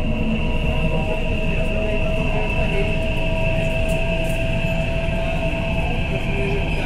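Delhi Metro train running at speed, heard from inside the coach: a steady rumble of wheels on rail with a constant high whine over it.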